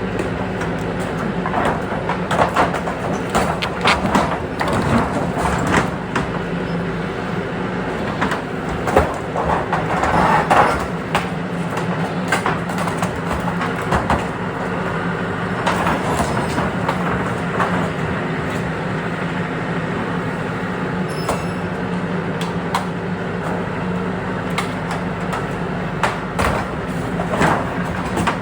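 TYM tractor's diesel engine running steadily under way, with frequent clanks and rattles from the tractor and its load.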